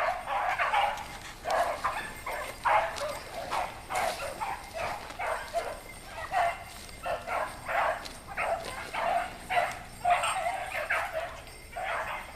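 A pack of hunting hounds baying as they run a trail, several voices overlapping in a continuous string of short cries: the hounds have jumped their quarry and are in full cry on the track.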